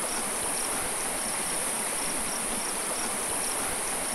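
Steady high-pitched insect trilling over the rush of a shallow creek, with faint short chirps repeating about two or three times a second.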